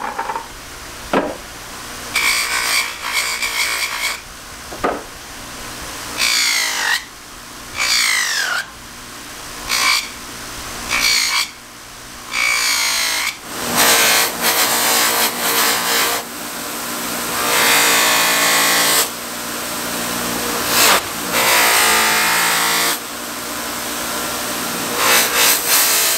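Bench buffer (bench grinder with a buffing wheel) running with a steady motor hum, while a polishing compound bar and the steel knife blade are pressed against the spinning wheel in repeated scraping passes. The passes are short at first and longer in the second half. This is buffing the freshly reground blade toward a gleaming finish.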